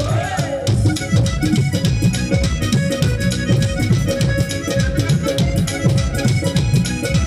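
Instrumental break of a live Punjabi band: fast dhol and dholak drumming under a keyboard melody with a reedy, accordion-like sound.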